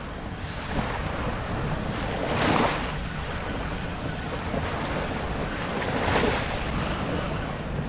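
Ocean surf washing onto the beach with wind buffeting the microphone: a steady rush, with two louder swells of breaking waves about two and a half and six seconds in.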